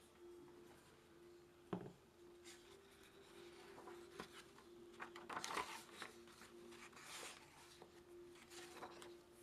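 Faint rustling and brushing of sketchbook paper as the pages are turned and handled, with a sharp knock a little under two seconds in. A faint steady hum runs underneath.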